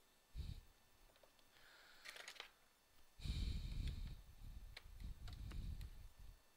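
Handling noise from a Lenovo Yoga 730 13 laptop being lifted and laid back down on a work mat: a soft thump half a second in, a few light clicks around two seconds in, then a longer stretch of rubbing and knocking against the case.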